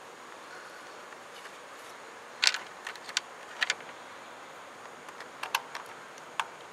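Scattered small clicks and taps, about seven in all, of metal screws being handled and set into the plastic air filter housing of a Champion portable generator.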